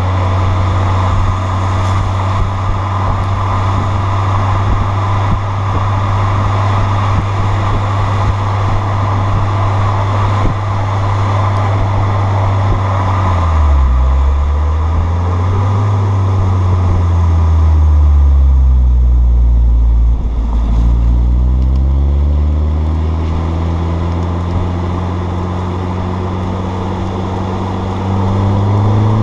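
Audi A4 B6 with a Borla catback exhaust under way, running a steady drone at constant speed. About halfway through, the exhaust note drops as the revs fall, then climbs again as the car accelerates toward the end.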